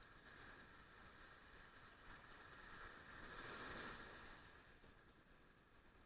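Near silence: a faint wash of surf that swells gently around the middle and eases off again.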